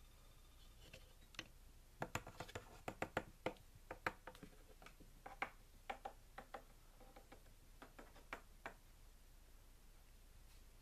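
Light, irregular plastic clicks and taps, a couple of dozen over several seconds and then stopping: Lego pieces being handled, with a minifigure pulled off its brick seat.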